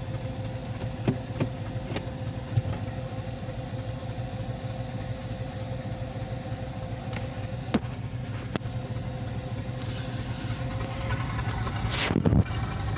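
An engine runs steadily with a low hum. A few sharp clicks come through, and there is a loud brief rush of noise near the end.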